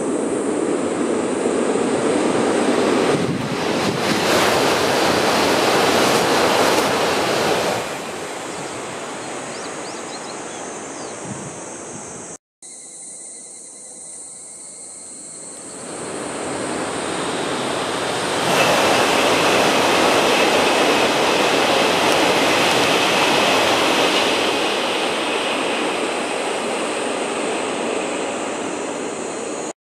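Wind gusting through the trees and over the microphone: a loud, steady rushing that swells, eases and swells again.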